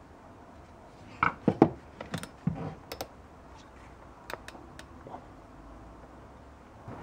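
Sharp clicks and knocks of metal tool parts being handled as a hole saw on its arbor is fitted into a cordless drill's keyless chuck. There is a cluster of loud knocks a little over a second in, lighter clicks until about three seconds, and a few faint ticks later; the drill is not running.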